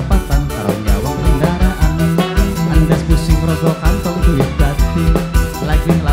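Live band playing tarling music from Indramayu, with a steady drum beat under bass and keyboard.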